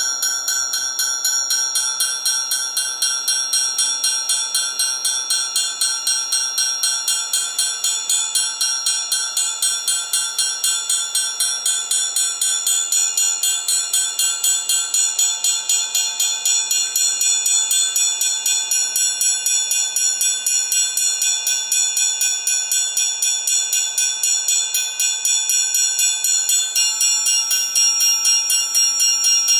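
Amplified triangle played in a rapid, even tremolo, its high metallic overtones ringing steadily over the fast strokes.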